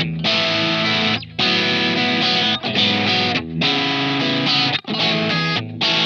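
Tokai TST-50 Strat-style electric guitar with single-coil pickups, played through distortion: strummed chords broken by sudden stops, about five short gaps across the few seconds.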